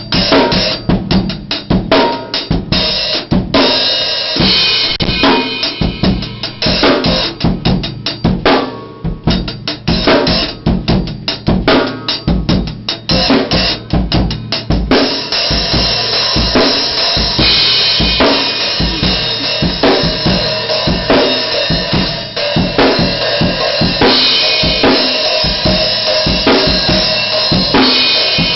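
Drum kit played: bass drum, snare and cymbals in a fast, busy pattern. From about halfway through, the cymbals ring on without a break under the hits.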